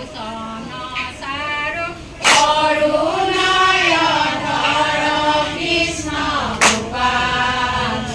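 A group of women singing an Assamese naam, a devotional hymn, together in a slow, drawn-out chant. Two sharp strikes cut through the singing, about two seconds in and again near the end.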